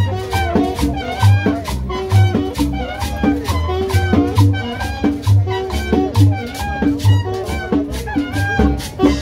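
Merengue dance music with brass and a fast, steady percussion beat over a pulsing bass. The music stops suddenly at the very end.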